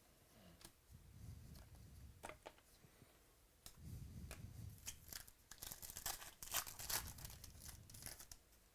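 Trading card pack wrappers being torn open and crinkled: a run of sharp, papery crackles that grows busier in the second half.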